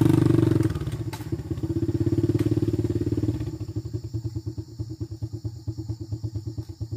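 Small motorcycle engine pulling away on a rough dirt path. It eases off under a second in, picks up again, then fades as the bike rides off, with a couple of sharp clicks along the way.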